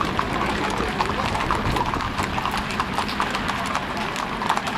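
Horse hooves clip-clopping, many overlapping irregular steps from several horses passing.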